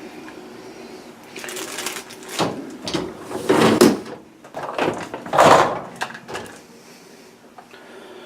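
A few short scraping and rattling handling noises as the washed pistol parts are taken out of the dishwasher rack, over a faint steady low hum.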